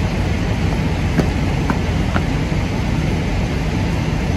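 Fire engine diesel engines running steadily at high idle beside the apparatus, a loud low hum. A sharp click comes about a second in, then two short high tones.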